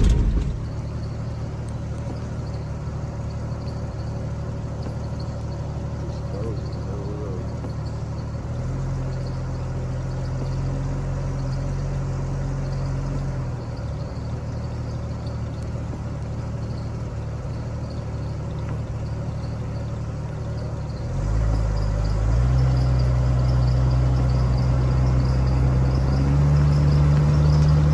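Vehicle engine and road noise while driving: a steady low hum that rises in pitch and loudness about nine seconds in, drops back around fourteen seconds, then climbs again around twenty-one seconds and once more near the end.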